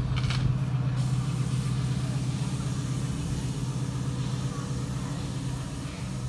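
Steady low machine hum, a little louder in the first second or two and easing off toward the end, with a brief hiss in the first second.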